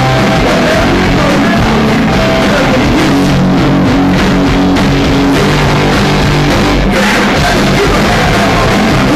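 Punk rock band playing live: electric guitars, drum kit and a singer's vocals into the microphone, loud and unbroken.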